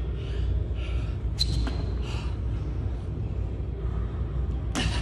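A man breathing hard through a burpee, with a few short knocks of hands and feet meeting the floor; the loudest is a sharp impact just before the end. A steady low rumble runs underneath.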